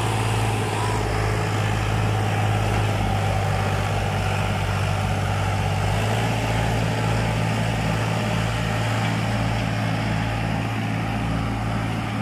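Diesel tractor engines, one a Sonalika, running steadily under load while two tractors chained together haul a loaded trolley out of mud.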